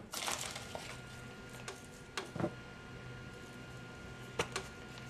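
Vegetables and vegan meat pieces steaming under a glass lid in a skillet with a little water: a faint steady sizzle with a few soft pops and ticks.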